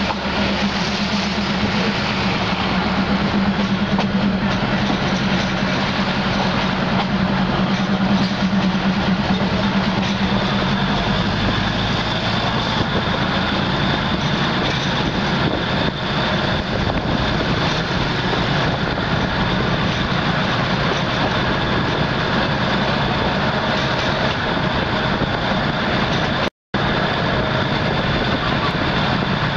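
Diesel passenger train running along the line, heard from inside a carriage at an open window: a steady rumble of wheels and wind over a low engine hum. The sound cuts out for a split second near the end.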